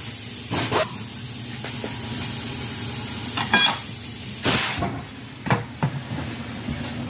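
Tire shop work sounds: a short blast of compressed air hissing, a brief squeal, and a few knocks and clanks over a steady low hum.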